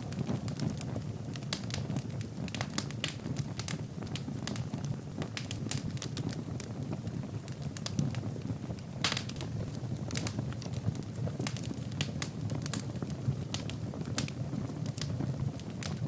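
Wood fire burning in a fireplace: a steady low rush of flames with frequent, irregular crackles and pops from the logs, one sharper pop about halfway through.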